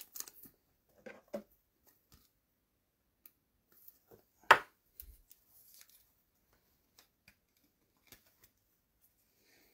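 Trading cards being handled, faint rustles and slides, with one sharp loud tap about four and a half seconds in.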